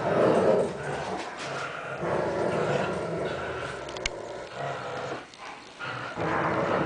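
Two dogs, one a greyhound, growling steadily as they pull against each other over a toy in a play tug-of-war. The growling is loudest at the start, eases off for a moment around five seconds in, and swells again near the end, with one sharp click about four seconds in.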